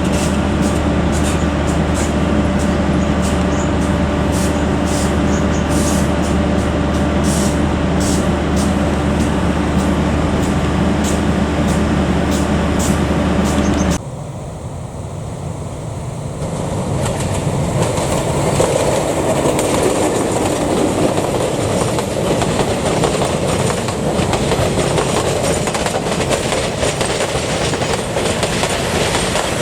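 A diesel locomotive idles steadily with a deep hum. After an abrupt cut about halfway through, a train rolls into the station, its wheels clattering over the rails and growing louder.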